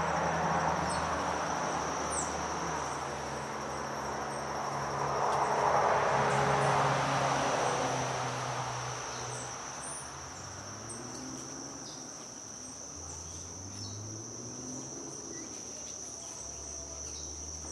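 Steady high-pitched insect trill, typical of a cricket, going on without a break. A broad rushing noise swells twice, loudest around six seconds in, over a low hum, with a few faint short chirps.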